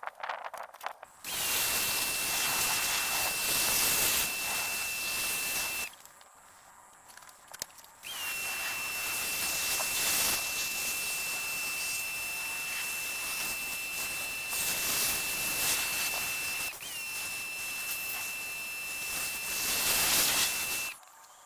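Pressure washer spraying in three long bursts, a hissing spray with a steady high whine that comes on at the start of each burst.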